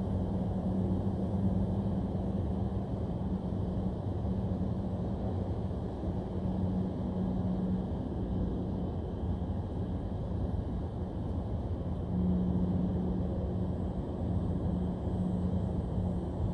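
Steady low outdoor rumble with a constant low hum running through it, a little louder from about twelve seconds in.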